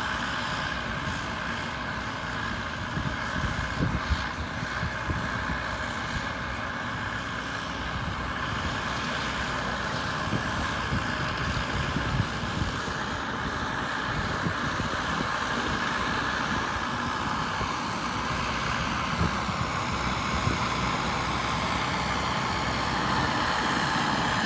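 CAT D6R2 bulldozer's diesel engine running steadily, with scattered low clanks and knocks from the machine working, getting slightly louder near the end.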